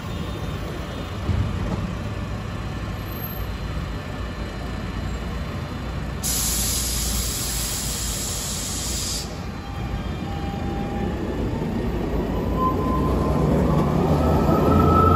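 Rubber-tyred articulated electric tram-bus: compressed air hisses out for about three seconds, about six seconds in, then a whine that rises in pitch builds as the vehicle pulls away.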